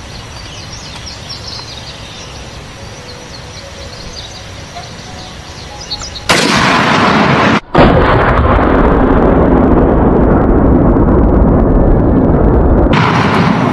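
A .50 BMG rifle shot and an exploding target downrange: a sudden loud blast about six seconds in, followed by a long loud rumble of about six seconds that steps down near the end. Before it, quiet open-air ambience with faint high chirps.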